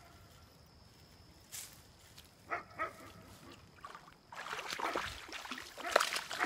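A hooked largemouth-size bass being reeled in to the bank on a spinning rod, splashing and thrashing at the surface over the last two seconds, loudest about six seconds in.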